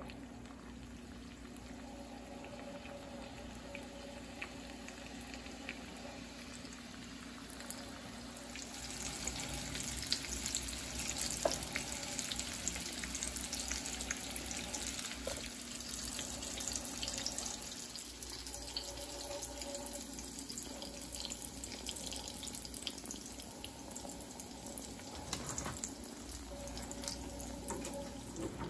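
Hot oil sizzling and crackling around corn-tortilla taquitos frying in a skillet, growing louder about eight seconds in. A few light clicks of a spatula and tongs against the pan.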